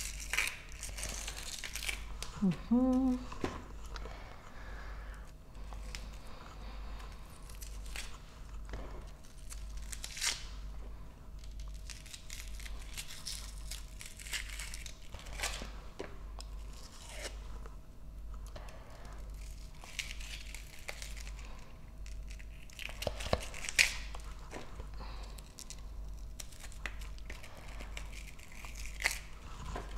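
Raw onion layers being pulled apart and peeled by hand, in scattered crisp snaps, tearing and crunching sounds. A brief hummed voice sound comes about three seconds in.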